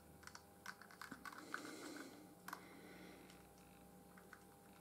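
Faint, irregular little clicks and scratches of a wooden cocktail stick spreading PVA glue over the moulded plastic coal of a model locomotive tender.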